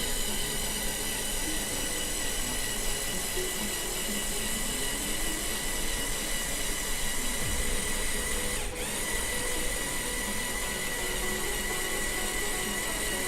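Small electric motors of a Lego Technic Volvo L350F wheel loader model whining steadily, with a brief dip about nine seconds in.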